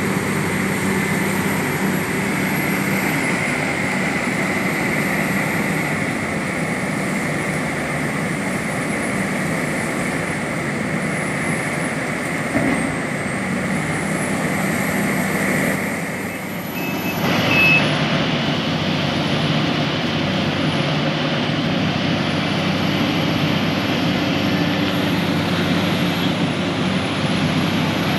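Sumitomo SH350 LHD excavator's diesel engine running steadily, with a high steady whine over it for the first half. The sound dips briefly about sixteen seconds in, then rises again.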